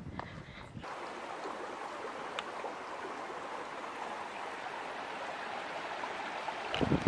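A shallow, rocky mountain stream running, a steady rush of water over stones. Music comes in near the end.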